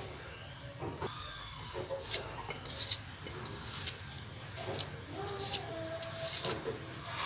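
A kitchen knife slicing peeled red ginger held in the hand, the small pieces dropping into a blender jar with several short, sharp clicks between soft cutting and rubbing sounds.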